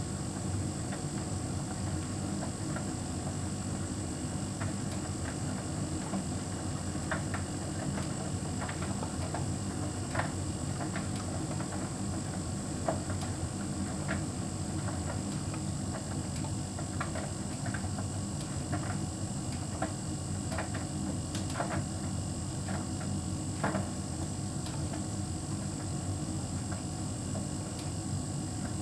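Hotpoint heat pump tumble dryer running with a steady hum, with scattered light clicks throughout.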